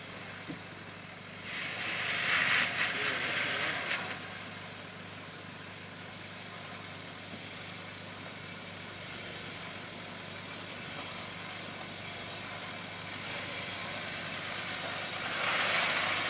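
Land Rover Discovery 3 engine running at low revs as the 4WD crawls over rock ledges, with two louder stretches of rough, hissing noise, about two seconds in and near the end, from the tyres working over rock and dirt.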